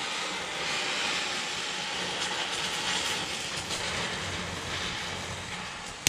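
Oxy-acetylene gas welding torch flame hissing steadily as it heats the steel frame, with one sharp snap near the end.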